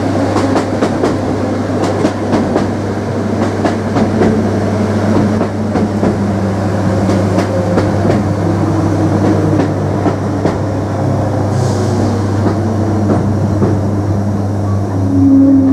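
Passenger train running along the line, heard from inside the carriage. There is a steady low hum with shifting motor tones, and clicks and rattles from the wheels on the track. A louder humming tone comes in near the end.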